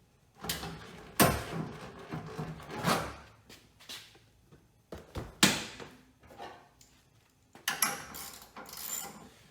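Door trim panel of a 1970 Buick Riviera being handled and hung on its clips on the door for a trial fit: several sharp knocks and scraping against the door, with a busier stretch of knocking and rubbing near the end.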